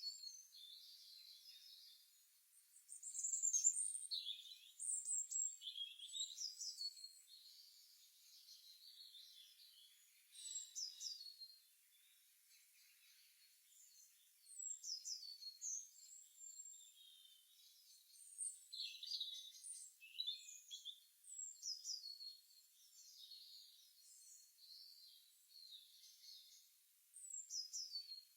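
Several songbirds chirping and calling in an early-morning chorus: quick, high, sweeping notes in bursts every second or two, with short lulls between.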